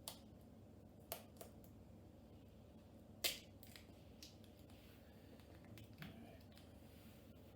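A few short, faint clicks and taps from small tools and laptop parts being handled, the sharpest about three seconds in, over near-silent room tone.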